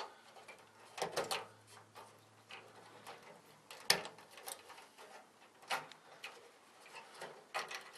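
Pliers pulling wire connectors off the main control board of a Heat Surge electric fireplace, heard as scattered small clicks and knocks, the sharpest about four seconds in.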